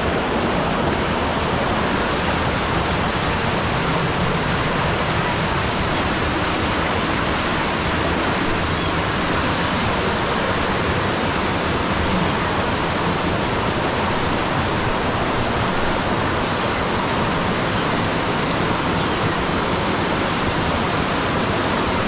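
Rushing water of a rocky jungle stream pouring over small cascades: a loud, steady, unbroken rush.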